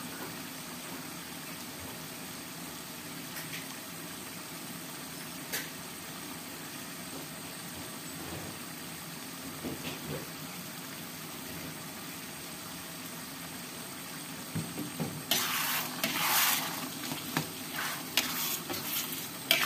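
Thick chili sambal simmering in a black wok with a steady low hiss and a few faint pops. About fifteen seconds in a spatula starts stirring it, bringing louder, irregular sizzling bursts.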